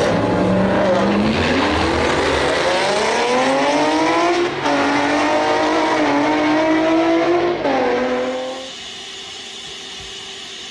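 Turbocharged 2017 Ford Mustang making a drag-strip pass. The engine's pitch climbs hard, breaks at a gear shift about four and a half seconds in and climbs again, then falls away and turns faint near the end as the car runs off down the track.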